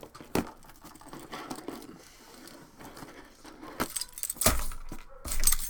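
A metal key jangling on its ring and scraping as it cuts open a taped cardboard shipping box, with cardboard rustling and a few louder handling knocks near the end.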